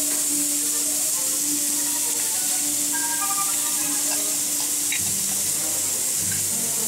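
Steaks, potatoes and squash sizzling on the grates of a Char-Broil Red infrared gas grill: a steady, even hiss of searing meat.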